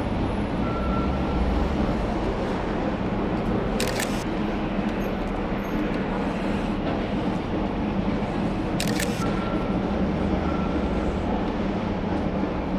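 Two camera shutter clicks about five seconds apart, over a steady background of street noise.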